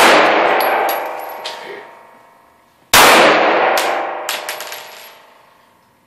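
Semi-automatic pistol shots echoing in an indoor range: it opens on the long ring-down of a shot fired just before, and a second shot comes about three seconds in and fades the same way. Light metallic tinkles after each shot are spent brass casings landing.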